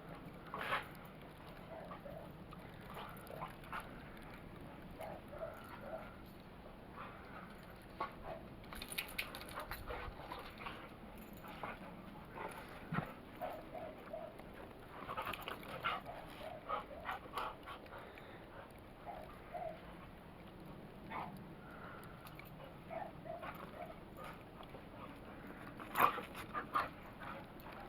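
Australian Shepherds playing in snow: short yips and whines in scattered clusters, with scuffling sounds between them and a louder burst near the end.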